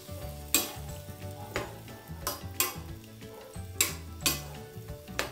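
Metal spoon stirring chunks of squash in a metal pan of simmering sauce, knocking and scraping against the pan with several sharp clinks.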